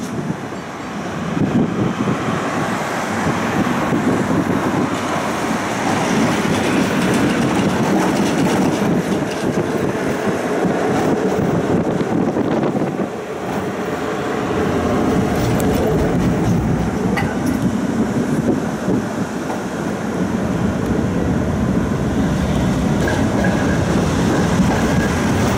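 Tram running along its track, heard from on board: a steady rumble of wheels on rail and running gear, easing briefly about halfway through.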